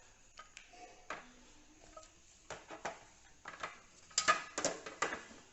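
Small objects being handled and set down, scattered clicks and light clatter, with a quick cluster of sharp clicks about four seconds in.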